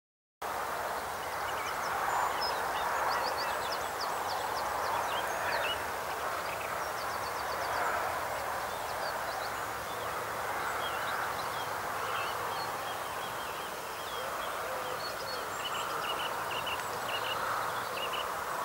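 Small birds calling over a steady rushing background noise: scattered runs of quick, high chirps and ticks, with a quick series of short notes near the end.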